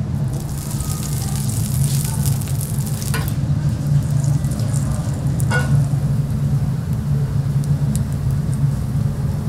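Food sizzling in a hot pan or on a grill, heard as a hiss that is strongest in the first three seconds, over a steady low hum. Two light clicks come about three and five and a half seconds in.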